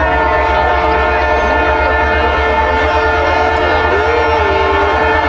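Diesel locomotive's multi-chime air horn starting suddenly and held as one long steady chord, with a crowd's voices faintly underneath.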